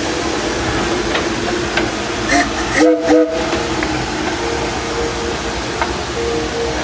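Steam locomotive Ernest S. Marsh sounding two short blasts on its chime whistle about three seconds in, over a steady steam hiss as the engine moves. Two short blasts are the railroad signal to proceed.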